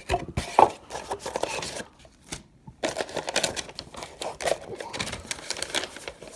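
Paper and plastic lure packaging rustling and crinkling as a cardboard tackle subscription box is unpacked by hand: irregular handling noise with a sharp burst just over half a second in and a short lull around two seconds in.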